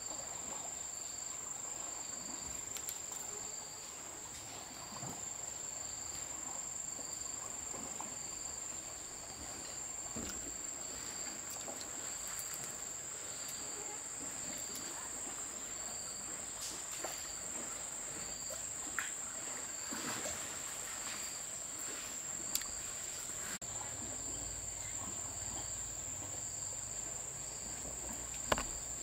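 Insects calling outdoors: one keeps up a steady high-pitched trill while another chirps in even pulses a little faster than once a second. A few faint clicks and knocks come through, with a sharper click near the end.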